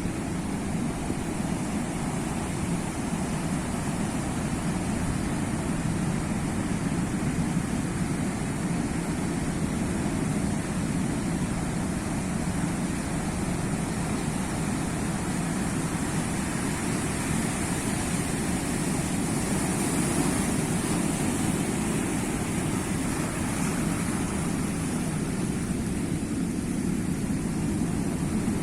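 Sea waves washing onto the shore in a continuous rushing sound, swelling a little about two-thirds of the way through.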